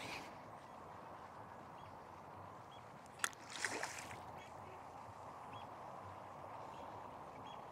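A hooked barbel splashing at the surface of the river, one short splash about three and a half seconds in, just after a sharp click. A steady faint hiss runs underneath.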